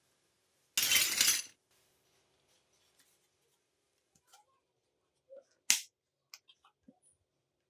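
Small plastic toy kitchen pieces being handled: a short noisy rustle about a second in, then scattered light clicks and taps, the sharpest just before six seconds in.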